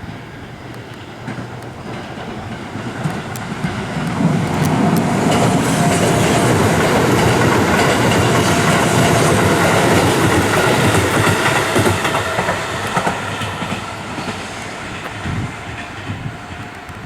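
A train passes by, growing louder from about four seconds in, loudest in the middle and fading away near the end.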